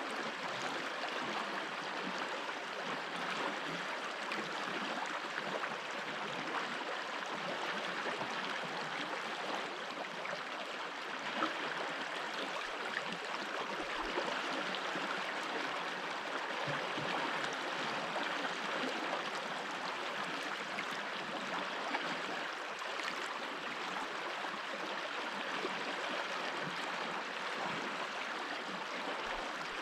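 Mountain stream flowing over stones: a steady, even rush of water with small gurgles.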